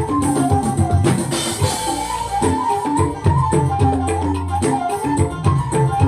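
Gondang Labura traditional music played loud through a sound system: a wavering, ornamented high melody line over rapid drumming and a steady low bass.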